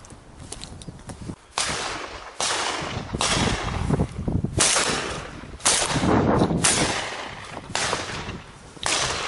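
A string of shotgun shots, about eight in nine seconds, each cutting in sharply and trailing off in a long echo.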